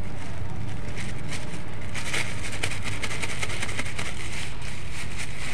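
Thin plastic bag crinkling in short, irregular rustles as flour is shaken out of it into a steel bowl, over a steady low rumble.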